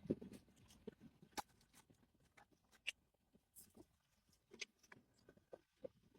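Near silence with a few faint, scattered clicks and taps: small objects being handled, most likely sample car keys being picked out.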